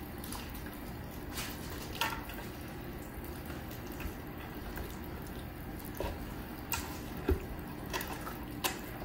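Wet handling of a raw brined turkey being flipped over and settled on a wooden cutting board: a few short, sharp wet clicks and slaps of skin over steady low room noise.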